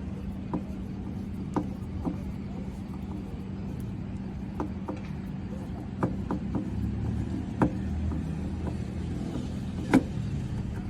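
Scattered sharp clicks and light knocks of hand tools and metal parts as a replacement car door handle is screwed in place, over a steady low hum.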